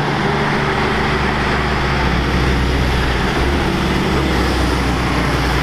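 Diesel car-transporter truck driving by, its engine giving a steady, deep hum under a wash of road and tyre noise.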